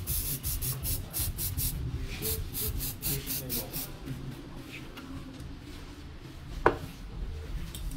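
Aerosol can of coloured hair spray hissing in a quick series of short bursts, then a single sharp click near the end.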